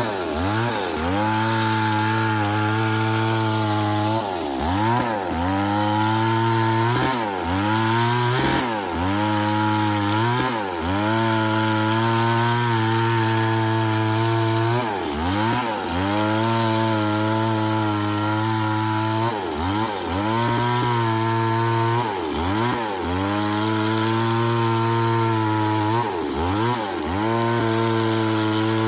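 Two-stroke chainsaw running at high revs while cutting through wood, its engine pitch dipping sharply and recovering again and again as the chain loads in the cut.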